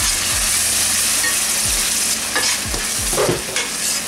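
Tomato puree sizzling in hot oil with browned onions in a stainless steel sauté pan on medium heat, a steady hiss that eases after about two seconds. A metal spatula then scrapes and stirs across the pan bottom several times.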